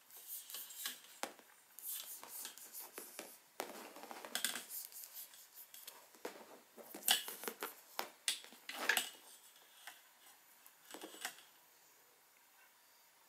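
Clear plastic packaging crinkling and rustling as hands unwrap and handle a cable, in irregular bursts with a few sharp clicks, stopping about 11 seconds in.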